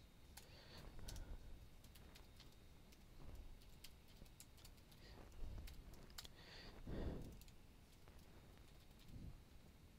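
Faint, scattered short clicks over quiet room tone, with a few soft low thumps, the loudest about seven seconds in.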